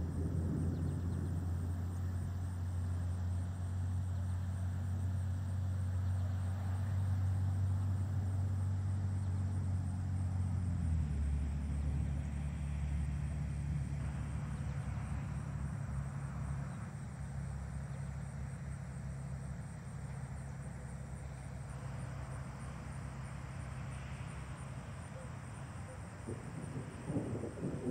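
Rural outdoor ambience: a steady low rumble that drops in pitch about eleven seconds in, with faint insects chirping.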